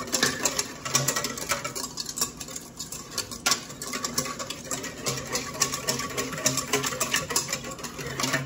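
Wire whisk beating a creamy mayonnaise, oil and vinegar dressing in a stainless steel mixing bowl: a rapid, steady run of wire clicking and scraping against the metal.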